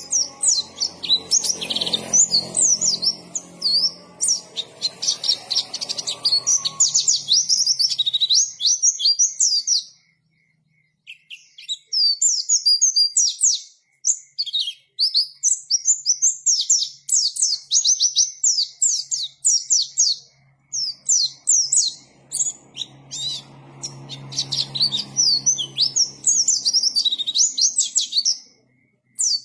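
White-eye (pleci) singing: long, rapid runs of high, sweet chirping notes, with short breaks about ten and fourteen seconds in.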